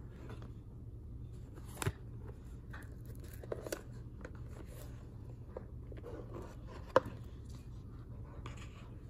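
Unboxing handling sounds: red twine slid and pulled off a cardboard gift box, card rubbing, and the box lid lifted off, with scattered light taps and one sharper knock about seven seconds in. A steady low hum underneath.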